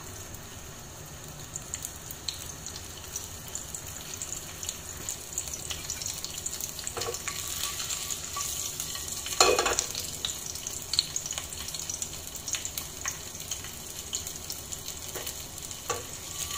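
Whole garlic cloves sizzling in hot oil in a kadai, a steady hiss with crackles and pops that get busier partway through. One louder knock comes about halfway through as the pan is tilted and swirled on the burner.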